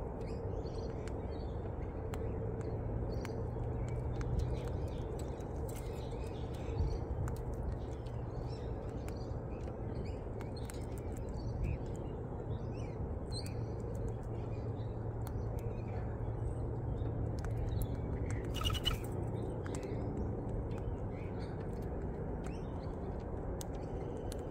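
Birds chirping and calling throughout, many short chirps, over a steady low hum, with scattered small clicks. About 19 seconds in comes a louder, harsher call.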